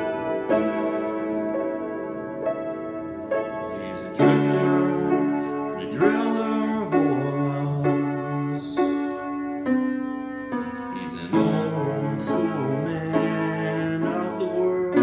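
Piano played in chords, joined about four seconds in by a man's singing voice.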